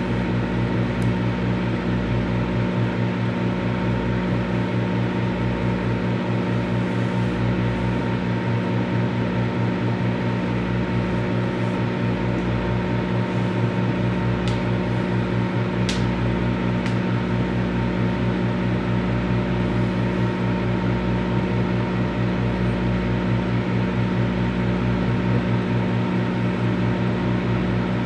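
Microwave oven running: a steady hum with fan noise, and a few faint ticks in the middle.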